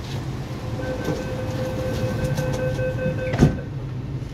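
A steady door-closing warning tone sounds for about three seconds over the low hum of an MTR East Rail Line R-train at the platform. The doors then shut with a loud thud just before the tone stops.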